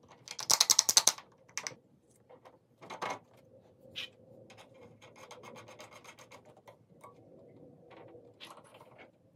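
Small mechanical clicking and ratcheting from fitting a propeller and its nut onto an RC plane's motor shaft. A loud burst of fast clicks comes about half a second in, then a few single clicks, then lighter, evenly spaced ratchet-like clicking through the second half.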